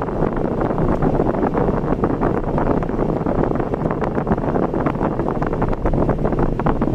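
Steady road and wind noise of a car being driven, a dense rushing noise with fine crackling through it and no change in engine pitch.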